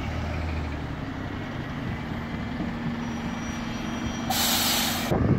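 Heavy diesel vehicle's engine running, with a short, sharp hiss of air brakes about four seconds in.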